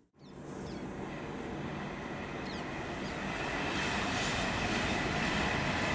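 London Overground Class 378 electric train running alongside the platform, its noise growing steadily louder. A steady high whine comes in about three seconds in, with a few faint wheel squeaks.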